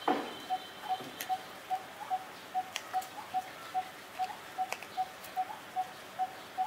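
Even, steady ticking, about two and a half ticks a second, with a few sharper clicks among it; a short, louder falling sound opens it.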